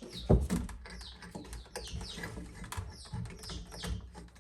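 Small clicks and knocks of stiff electrical wires being folded and pushed into an outlet box, with one louder knock about a third of a second in. A bird chirps repeatedly throughout, short falling chirps about twice a second.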